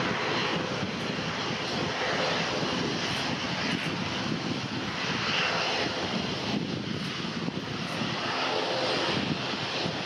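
Two CFM International CFM56-3B2 turbofan engines of a Boeing 737-300 freighter running at taxi power, a steady, even engine noise.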